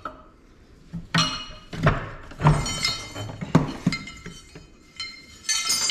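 Metal parts clinking and knocking against a steel Dana 44 axle shaft clamped in a bench vise as the old axle seal and the cracked bearing pieces are worked off it: about half a dozen sharp strikes, each with a short ringing tone.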